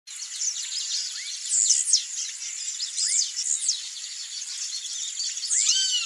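Blue-black grassquit singing its short, sharp song several times, over other small birds chirping and a steady high insect drone.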